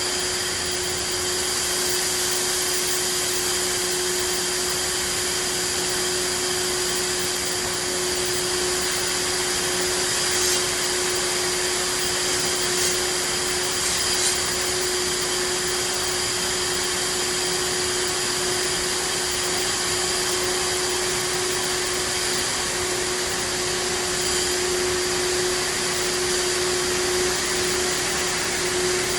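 Steady drone of running machinery with a constant hum tone, and a few faint clicks about halfway through.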